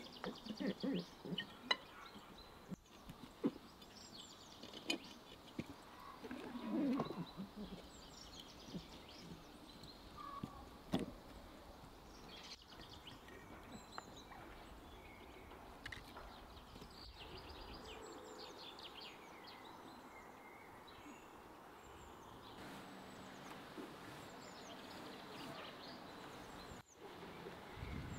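Garlic bulbs being pressed into glass jars, with a papery rustling and sharp knocks against the glass coming mostly in the first half. Birds chirp throughout.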